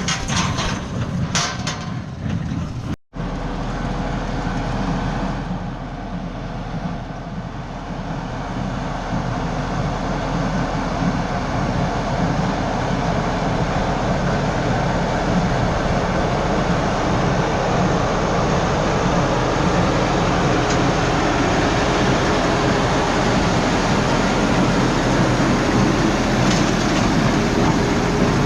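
Farm tractor and machinery running steadily, a heavy mechanical drone with rattling. It breaks off briefly about three seconds in and then builds slightly.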